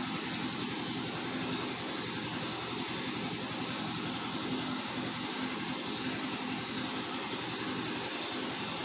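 Steady machine hum with a continuous even hiss and a low held tone, unchanging throughout.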